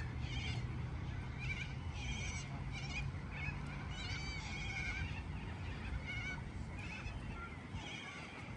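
Repeated short, wavering animal calls over a steady low rumble.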